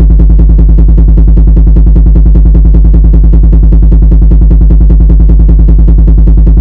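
Car-breakdown sound effect: a loud, low, steady drone with a rapid, even pulsing rattle, imitating a car with serious engine trouble.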